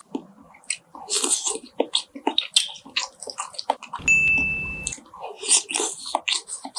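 Close-up crunching and chewing of crisp fried chicken, a string of short crackling bites. About four seconds in, a loud one-second sound with a steady high tone over a low buzz cuts across it.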